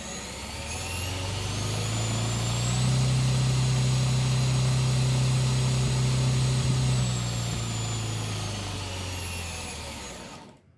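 Cyclorotor on a test stand, belt-driven through a 4:1 GT2 belt by a 2008-size 1250 kV brushless motor, spinning. Its low hum and high whine rise as it spins up, hold steady for several seconds, then wind down and cut off near the end.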